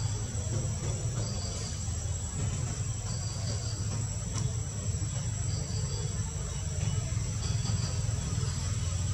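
Insects calling: a steady high-pitched drone with short chirps repeating about every one and a half to two seconds, over a low rumble.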